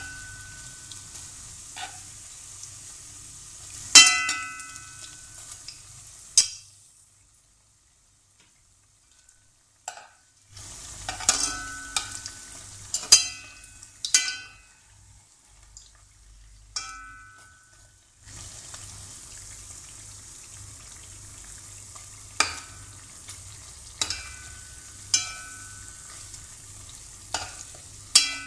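Bread pieces deep-frying in hot oil with a steady sizzle. A slotted spatula repeatedly clinks against the wok as it turns them, and the pan rings briefly after each knock. The sound drops out for a few seconds about seven seconds in.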